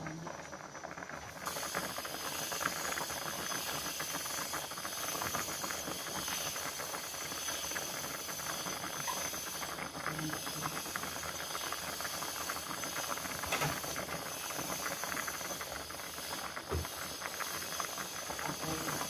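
Pieces of pangasius fish cooking in a pan of boiling, foaming liquid: a steady hiss thick with fine bubbling crackle. It grows fuller about a second and a half in.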